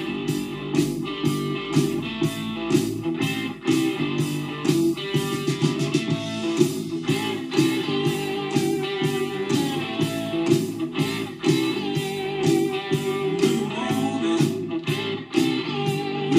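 Instrumental background music led by guitar, with a steady beat of about three strokes a second.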